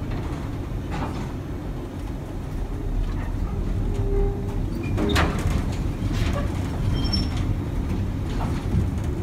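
Baltimore Air-Electric PCC streetcar running along the track, heard from inside the operator's cab: a steady low rumble with a few short clicks and knocks, the sharpest about halfway through.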